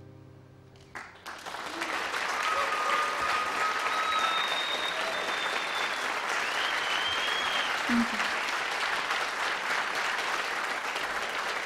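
Audience applause and cheering at the end of a live song. The song's last sustained notes fade out, then the clapping breaks out about a second in and holds steady, with a few long whistles from the crowd.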